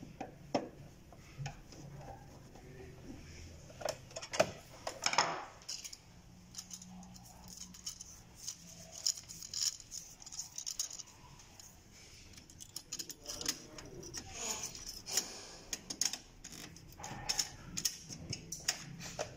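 Scattered clicks, scrapes and light metallic clinks from a screwdriver and hands working on a partly dismantled HP LaserJet 1320 laser printer, a sheet-metal bracket being handled and lifted out of the frame.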